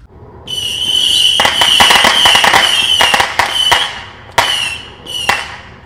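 Brothers 50-shot missile battery firing whistling missiles. A shrill, steady whistle starts about half a second in with dense crackling through the middle, followed by three shorter whistles with sharp cracks.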